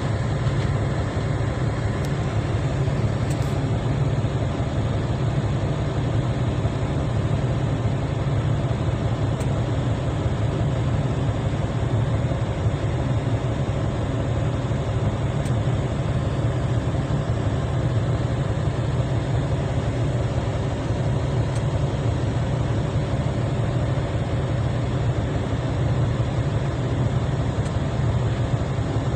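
Heavy mining machinery engine running steadily: a deep, even drone with no change in speed.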